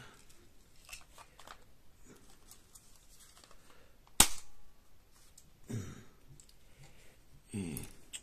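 Handling of a cheap plastic spring-powered BB pistol while it is loaded: faint small clicks and one loud, sharp snap about four seconds in. Two short low murmured vocal sounds follow near the end.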